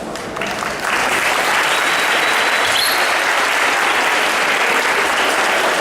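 Audience applauding, the clapping swelling to full strength about a second in and holding steady.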